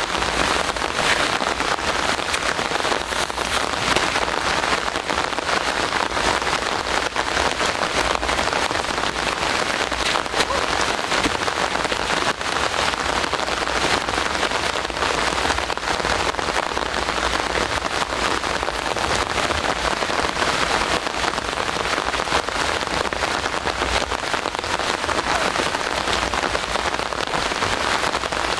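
Steady rain falling, with a dense, even spread of close drop hits that does not let up.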